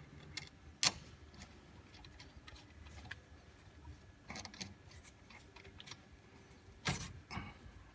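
Faint metallic clicks and taps of a front brake caliper and its bolt being handled and fitted back into place, with one sharp click about a second in and a louder clack near the end.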